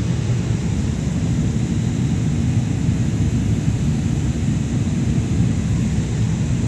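Steady low rumble of jet engines and rushing air, heard inside an airliner cabin in flight.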